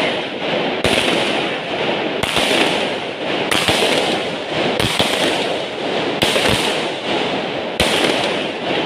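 A ground-launched firework shooting sparks skyward, hissing and crackling densely, with a fresh burst about every second and a half.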